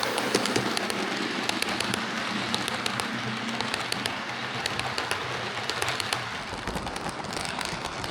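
Hornby R2169 'Clan Line' OO gauge model locomotive running on track: a steady motor and gear whirr with many irregular clicks and rattles from the wheels on the rails.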